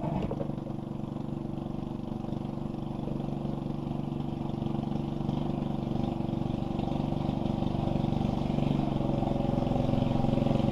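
A small motorboat's engine running steadily, growing gradually louder as the boat comes closer.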